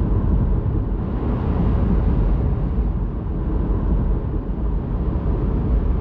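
A car driving at highway speed, heard from inside the cabin: a steady low rumble of road and engine noise.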